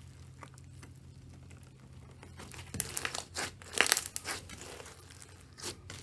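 Slime being squeezed and stretched by hand, giving a run of sharp crackles and pops about three seconds in and a few more near the end, over a low steady hum.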